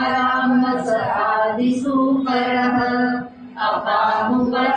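A woman's voice chanting Sanskrit verses to a sung melody.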